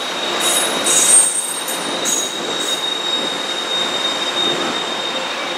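Coaster bilevel passenger cars rolling past with a steady, high-pitched steel-wheel squeal over the rumble of wheels on rail, with short, higher shrieks in the first couple of seconds.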